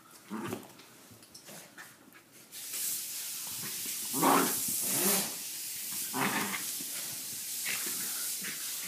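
Small dog growling in short bursts while it tugs on a towel in play. A steady hiss comes in about two and a half seconds in and lasts to the end.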